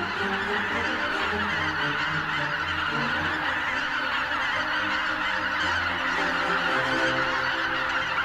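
A huge mixed flock of wild geese honking all at once, a dense unbroken chorus of calls.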